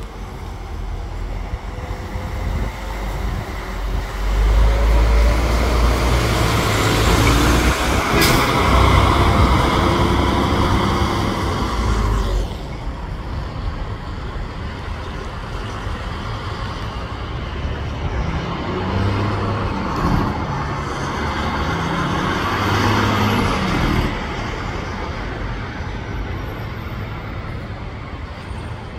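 Diesel intercity coach buses pulling away and driving past: engine rumble swells, then drops off about twelve seconds in, with a short sharp air-brake hiss about eight seconds in. A second coach's engine swells and fades between about eighteen and twenty-four seconds.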